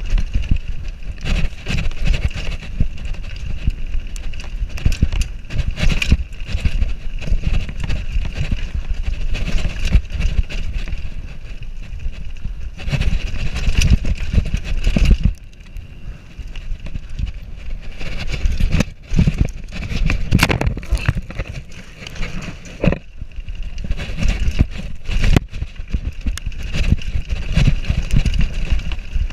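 Downhill mountain bike running over rocks and roots: constant rattling and knocking from the tyres, suspension and chain, over a dense low rumble, easing for a moment about halfway.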